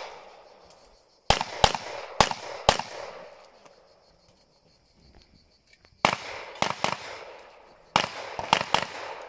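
Pistol shots fired in quick strings on an outdoor range, each crack ringing out in echo: four shots about a second in, three just after six seconds and three or four near eight seconds, with a quiet gap of about three seconds between the first and second strings.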